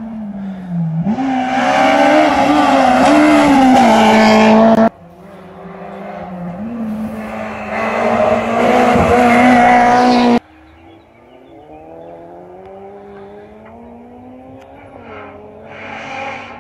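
Rally cars driven hard on a special stage, engines at high revs with the pitch dropping and climbing through gear changes. The loud engine sound cuts off suddenly twice, about five and ten seconds in, leaving a quieter engine revving in the distance.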